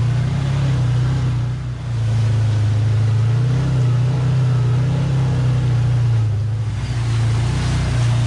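Side-by-side UTV engine running steadily at low speed on a rough trail, with a continuous rumble of the machine over uneven ground; the engine note eases briefly twice.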